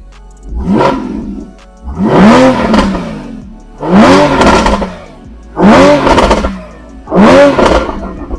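A Porsche Cayman GTS flat-six engine being blipped five times while standing, with its sports exhaust valves open. Each rev climbs and drops back, with pops and bangs from the exhaust on the overrun.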